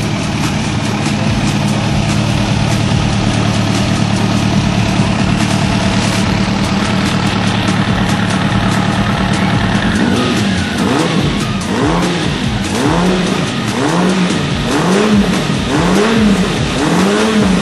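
Kawasaki ZX-9R carbureted inline-four engine running steadily at idle while its four carburettors are balanced on vacuum gauges. From about ten seconds in come repeated short throttle blips, roughly one a second, each rising and falling in pitch.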